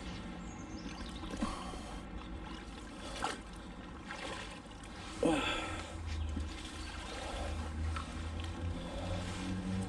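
Water trickling and dripping as a wet magnet-fishing rope and magnet are hauled in from canal water, with a sharp knock about three seconds in and a short grunt-like sound about two seconds later.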